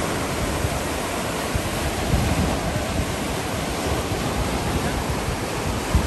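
Ocean waves breaking and washing up on a sandy beach, a steady rushing wash of surf, with wind buffeting the microphone in uneven low rumbles.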